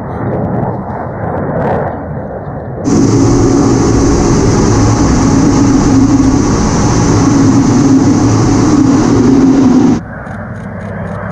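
Steady, loud cockpit noise inside an A-10C Thunderbolt II in flight, from its twin TF34 turbofan engines and rushing air, which starts abruptly about three seconds in. Before and after it, the rumble of jet aircraft flying past is heard from the ground, and the sound drops back to this quieter rumble suddenly near the end.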